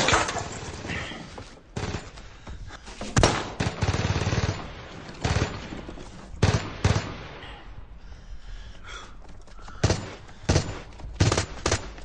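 Gunfire in a film battle scene: about a dozen single shots and short bursts at irregular intervals, some clustered close together near the end.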